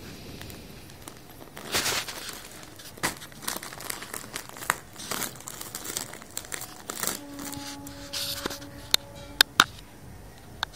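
Rustling, crinkling handling noise in irregular bursts, with a few sharp clicks near the end. About two-thirds of the way through, a steady held tone comes in underneath.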